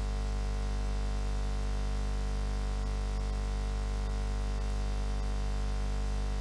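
A steady buzzing hum made of many fixed tones, unchanging in pitch and loudness, with no beat and no voice coming through.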